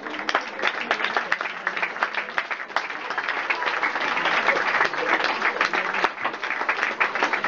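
Audience applauding: dense, irregular clapping that grows fuller about three seconds in.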